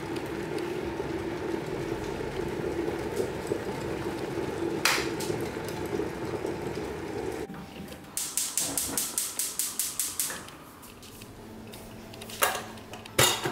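Electric glass kettle at a rolling boil, with a steady rumble and bubbling that stops abruptly about seven seconds in. A quick run of about a dozen sharp rattling clicks follows, and two sharp knocks come near the end.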